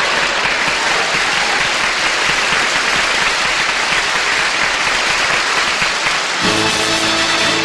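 Audience applauding after a comedy punchline, then about six seconds in a band strikes up a musical transition.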